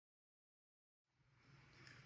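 Near silence: dead silence for about the first second, then faint room tone.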